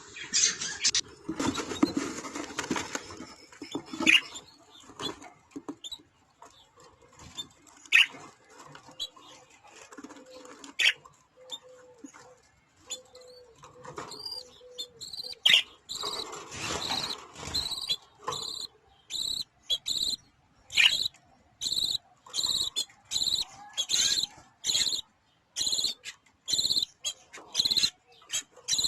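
Budgerigars calling: scattered clicks and soft chatter at first, then short, sharp chirps repeating evenly about twice a second through the last third.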